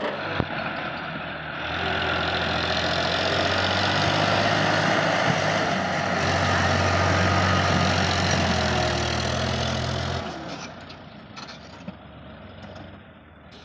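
Sonalika DI 750 tractor's diesel engine running as it passes close by pulling a trailer loaded with soil; the engine sound is loud and steady for about eight seconds, then falls away about ten seconds in.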